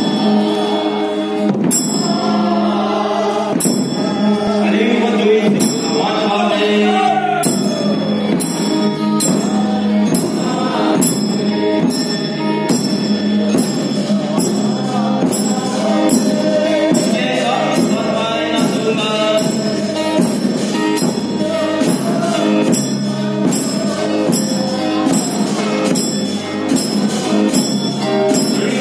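Voices singing a song through a loudspeaker system, with a steady drum beat and jingling percussion at about two beats a second, accompanying a line dance.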